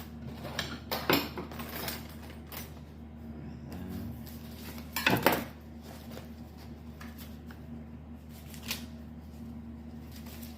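Dishes and cutlery clattering and clinking, a handful of separate knocks, the loudest about five seconds in, over a steady low hum.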